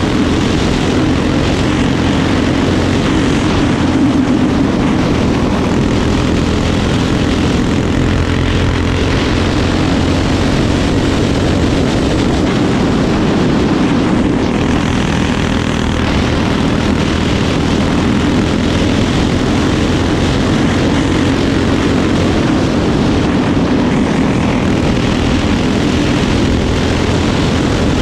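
Single-cylinder four-stroke racing kart engine running hard at high revs, its pitch dipping and climbing every few seconds as the throttle is lifted and reapplied around the oval.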